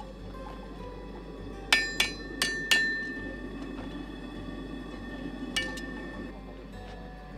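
A farrier's hammer striking a horseshoe on a steel anvil, each blow ringing. There are four quick blows about two seconds in and a single blow later on.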